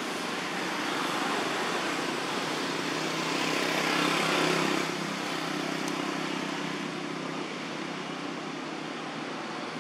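A motor vehicle's engine and road noise, swelling to a peak about four seconds in and then easing back to a steady drone.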